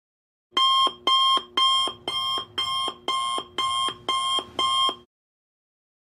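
Digital alarm clock alarm: nine identical electronic beeps, about two a second, starting about half a second in and stopping suddenly after about five seconds.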